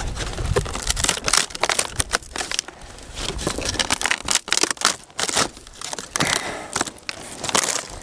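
A light wooden crate being torn apart by hand, its thin slats cracking and splintering in a string of irregular sharp snaps.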